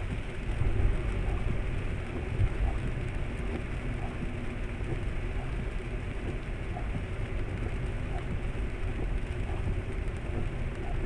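Steady low rumble of a car driving on wet road in the rain, tyre and engine noise heard from inside the cabin, with a couple of brief louder bumps about one and two and a half seconds in.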